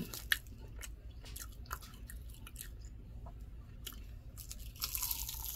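A person chewing food, with small crackly clicks throughout, then a louder crunch near the end when biting into a homemade fried onion ring.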